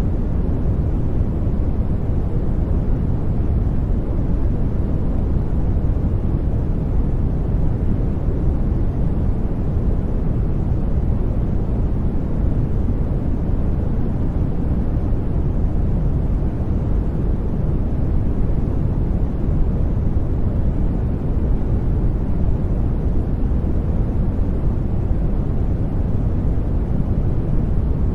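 Steady brown noise: an even, deep rumbling hiss, strongest in the lows and thinning toward the highs, unchanging throughout.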